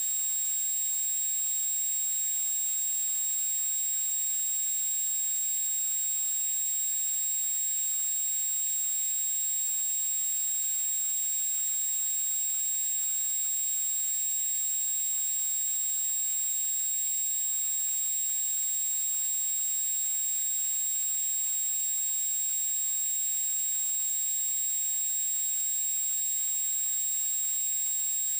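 A steady high-pitched tone over a faint hiss, with no change in pitch or level.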